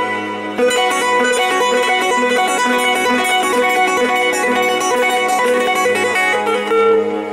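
Bağlama, the long-necked Turkish saz, playing a fast instrumental folk melody of quick plucked notes over a steady low drone. The playing drops back briefly, then comes back in strongly about half a second in.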